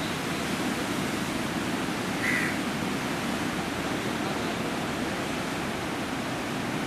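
Steady rushing outdoor noise of wind and sea water, with one short bird call about two seconds in.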